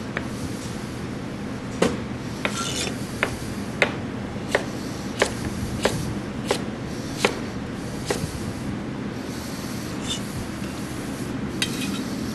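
Chef's knife cutting rutabaga into sticks on a cutting board. The blade knocks the board about once every two-thirds of a second, thinning out after the middle, over a steady low hum.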